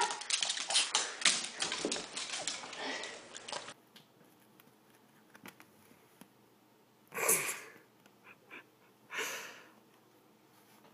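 A small dog's claws clicking and scuffling on a tile floor as it stands and paws on its hind legs, then, after a quiet stretch, two short rustles of cloth about two seconds apart as a kitten bats at a fabric couch skirt.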